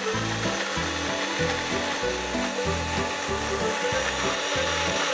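Countertop blender running steadily, its blades puréeing garlic and chili with a little water into a wet paste. Background music with a steady beat underneath.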